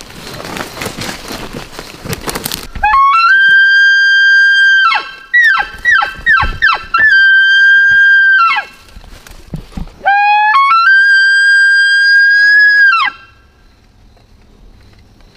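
Elk-style bugle. It glides up into a high, held whistle, breaks into a run of short dipping grunting notes, and holds the whistle again. After a pause a second call rises to the same held whistle and drops off at the end. A few seconds of rustling come before the first call.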